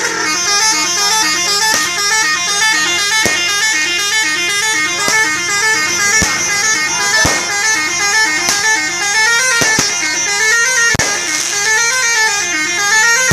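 Telolet bus horn, the multi-tone musical horn on an Indonesian bus, playing a fast repeating tune of short note runs without a break, turning to a wavering up-and-down tone near the end. Sharp cracks sound about once a second over it.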